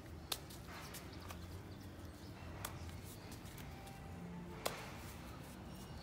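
Faint background music with three sharp clicks or taps about two seconds apart.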